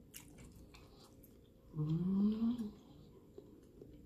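A person chewing with the mouth closed, with small wet mouth clicks, and about two seconds in a hummed 'mmm' of enjoyment lasting about a second, rising in pitch.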